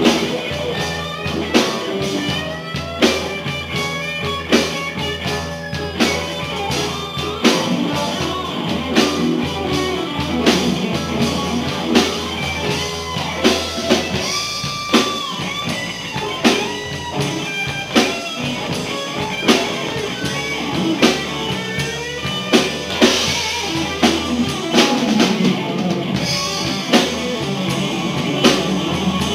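Live rock band with electric guitars, bass and a drum kit playing an instrumental stretch with no singing, the drums keeping a steady beat.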